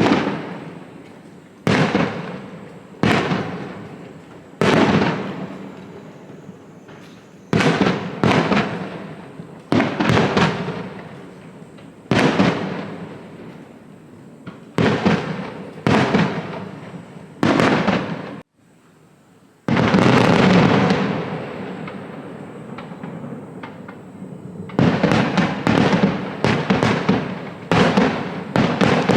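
Fireworks shells bursting one after another, each a sudden bang followed by a long echoing tail. About two-thirds of the way in a dense crackling burst lasts several seconds, and near the end the bangs come in a rapid volley.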